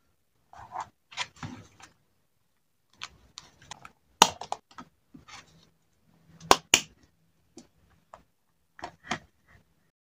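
Paper rustling and handling of a journal page, with several sharp clicks, the loudest about four seconds in and a close pair around six and a half seconds in, as the punched page goes into a metal ring binder.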